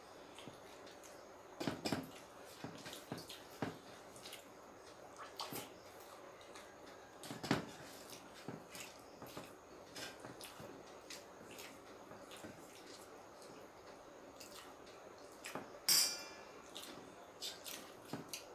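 Sounds of eating a meal: scattered soft mouth smacks and clicks of chewing. About sixteen seconds in there is a short ringing clink of a dish.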